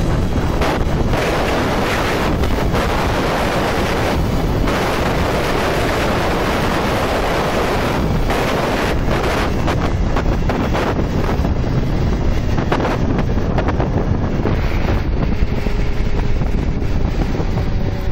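Loud, steady wind rushing over the microphone of a Peda Air 50 R scooter ridden at full throttle at its top speed, burying the engine's own sound.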